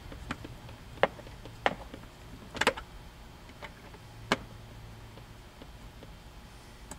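Five or so sharp, irregular clicks of a Torx driver working small screws out of a console glove box lid's piano hinge, the tool tip seating and turning in the screw heads.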